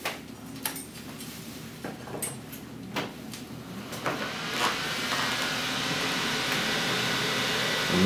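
A few clicks and knocks, then about four seconds in four box cooling fans on a transmission-cooler radiator switch on: a brief rising whine as they spin up, then a steady, noisy rush of moving air with a faint hum.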